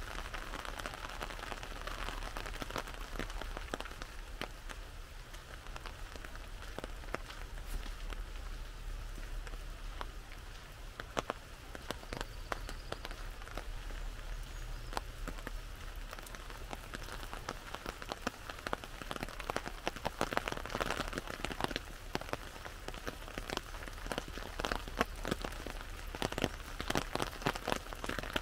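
Rain falling on an umbrella overhead: a steady hiss of rain with many sharp drop taps, which grow denser and louder in the second half.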